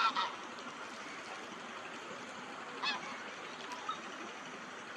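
Bar-headed geese honking: a pair of short calls at the start and another about three seconds in, over a steady background hiss.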